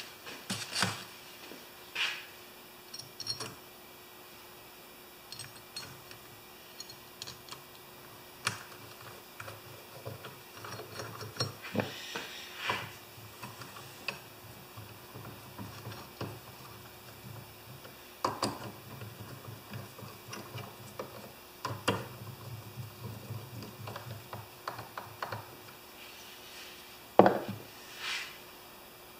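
Irregular clicks and light knocks of small metal carburetor parts and a hand tool being handled while the carburetor cover is fitted and fastened, with one sharper knock near the end.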